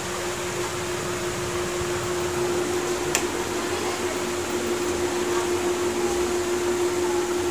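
Steady hum and hiss of a running electric fan, with a held tone throughout and a single brief click about three seconds in.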